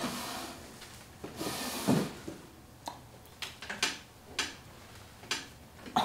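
Movement noise as someone gets up from a desk: a scrape ending in a thump about two seconds in, then several light knocks at uneven spacing.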